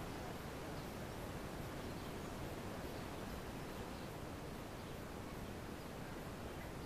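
Quiet lakeside outdoor ambience: a faint, even background hiss with no distinct sounds standing out.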